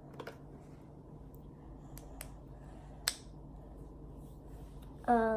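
A few light clicks and taps from small objects being handled, the sharpest about three seconds in, then a short hummed vocal note near the end.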